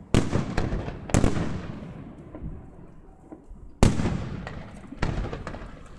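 Aerial fireworks shells bursting: four loud booms, near the start, about a second in, just before four seconds and about five seconds in, with a few smaller pops between, each boom dying away over a second or so.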